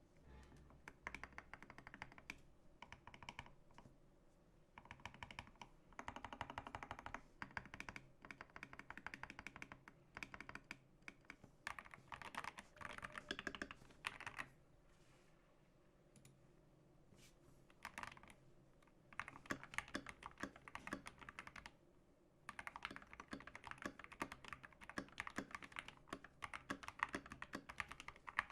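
Typing on a GK61 keyboard fitted with optical Gateron Yellow linear switches, their stems and housings lubed with Krytox 205g0 and filmed. Runs of rapid keystrokes come in bursts, with a pause of a few seconds about halfway through.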